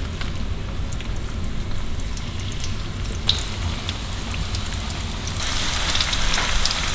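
Flour-dredged bluegill fillets frying in hot coconut oil in a stainless steel skillet: a steady sizzle crackling with many small pops, growing louder near the end.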